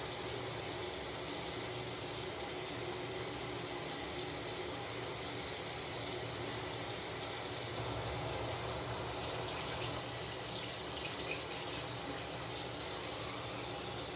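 Water running steadily from a bathroom sink tap.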